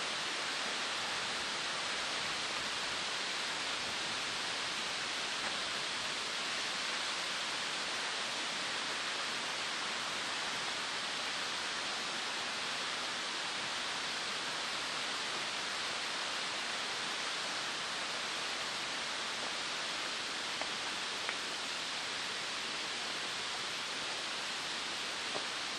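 A steady, even rushing hiss with no breaks, with a couple of faint ticks near the end.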